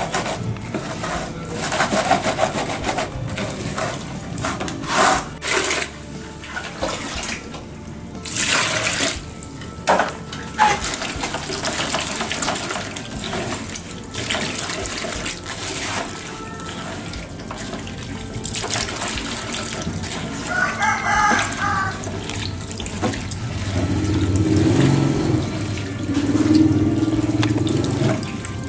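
Hands washing a basketful of small young linh fish in a plastic basin of water: continuous wet sloshing and rubbing, with irregular louder splashes as the fish are churned.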